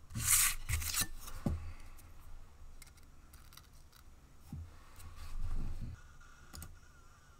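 Handling noise as a flat card is slid into place and pressed onto a gun's lower receiver: a scraping rustle with a few knocks in the first second and a half, then another bout of rubbing and tapping about five seconds in. A faint steady whine starts near the end.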